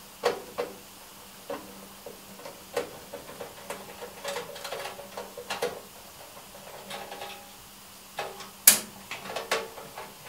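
Irregular small clicks, knocks and rattles of hands working in a furnace's wiring and sheet-metal cabinet as a capacitor and its wire leads are disconnected. One sharp click near the end is the loudest.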